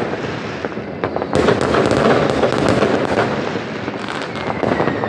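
Dense New Year's fireworks and firecrackers going off all around: a continuous rattle of crackles, pops and bangs, with a falling rocket whistle near the end.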